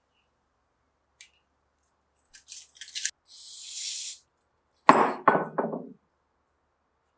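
Bike parts and tools being handled during assembly: a small click, a short rattle, a hiss lasting about a second, then a loud clink followed by a few quickly fading knocks.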